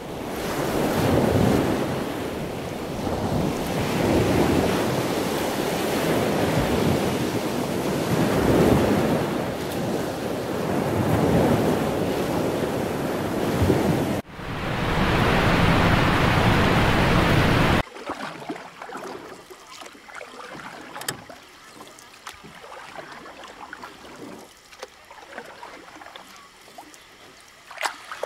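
Wind buffeting the microphone over sea surf, a loud surging rush that cuts off abruptly twice. It gives way to a much quieter stretch of faint background noise with scattered small knocks.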